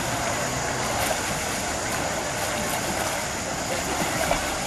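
Steady wash of swim-meet noise: swimmers splashing through butterfly strokes under a spectator crowd's hubbub, with no single sound standing out.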